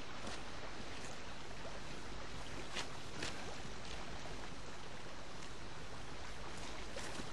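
Steady rushing of a river flowing past, with a few faint clicks about three seconds in.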